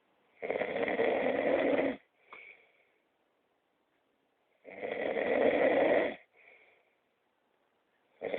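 A man snoring in his sleep. Two loud snores, each about a second and a half long, come about four seconds apart, and a third starts right at the end. Each snore is followed by a short, much fainter breath.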